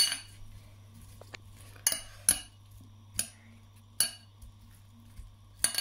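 Metal spoon clinking against a glass bowl while stirring a creamy salad: about six sharp, irregular clinks.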